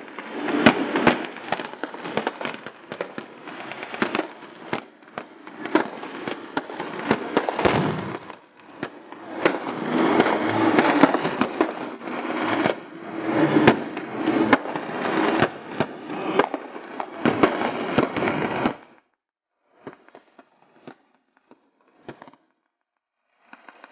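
Blank gunfire from a staged battle: a machine gun firing in bursts mixed with rifle shots in a dense, rapid string that cuts off abruptly near the end. Only faint scattered sounds follow.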